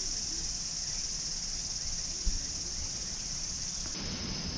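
Steady high-pitched insect chorus, with one short low thump a little over two seconds in.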